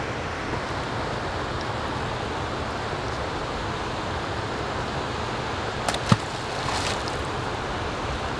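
Steady rush of water flowing out below a dam spillway, with wind on the microphone. About six seconds in there are a couple of sharp knocks and a brief clatter.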